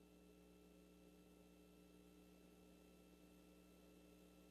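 Near silence, with a faint steady hum of a few unchanging tones and hiss.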